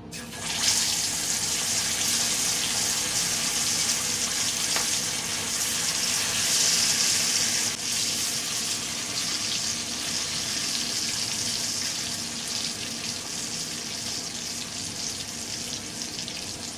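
Masala-coated fish pieces frying in hot oil in a kadai: a loud sizzle that starts suddenly as the pieces go into the oil, then runs on steadily and eases a little after about eight seconds.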